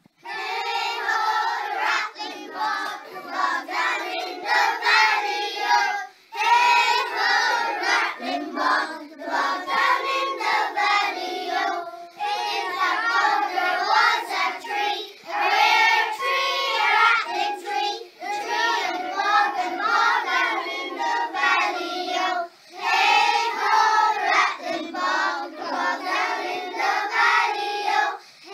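A class of young children singing together, in phrases with brief pauses between them.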